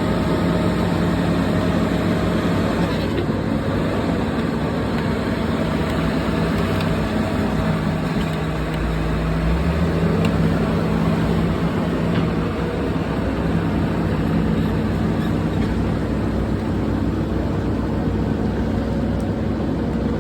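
Komatsu D68ESS crawler bulldozer's diesel engine running steadily under work, its note dipping and swelling with a heavier low rumble about eight to ten seconds in.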